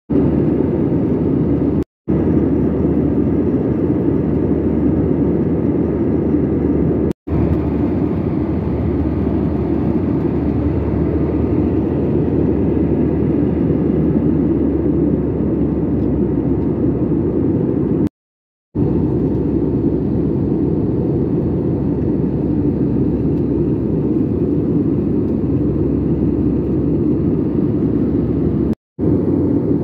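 Steady rushing drone of an Airbus A320-family airliner's engines and airflow heard inside the passenger cabin in flight. It cuts out to silence briefly four times.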